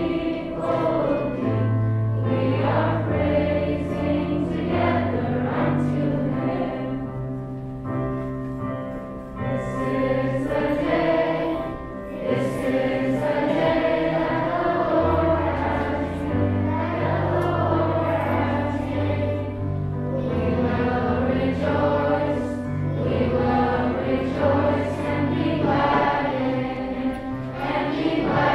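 Children's choir singing a hymn together over instrumental accompaniment, with steady held bass notes under the voices.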